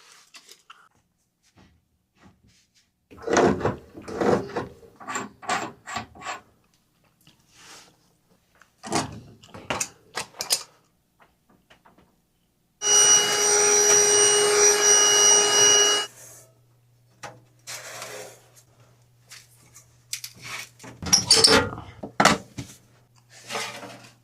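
Hand-tool work on water-heater plumbing: scattered knocks, clanks and rattles of tools and fittings. About halfway through, a power tool runs steadily for about three seconds with a whine, then stops, leaving a faint low hum.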